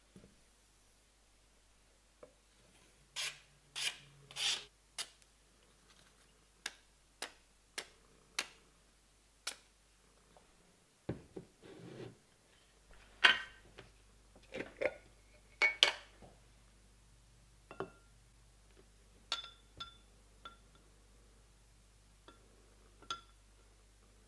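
A knife blade stroked three times across a wooden sharpening strop, then scattered light taps of handling on the bench. A heavy glass jar set down with a few solid knocks, the loudest sounds here, followed near the end by several short ringing glass clinks.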